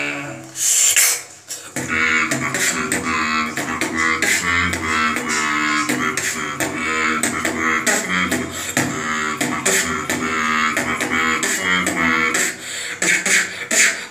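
Human beatboxing into a cupped hand in a robotic style: a continuous buzzing tone like an electric current, cut by sharp snare-like clicks in a steady rhythm that settles in about two seconds in.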